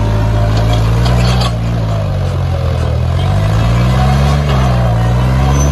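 John Deere tractor's diesel engine running hard as it drives through loose sand, its pitch dipping and rising again a couple of times as the load changes.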